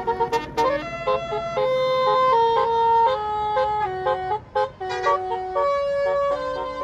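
Bus Basuri telolet horn playing a melody: a run of held, horn-like notes stepping up and down in pitch, with a few quick short notes between them, over low engine rumble.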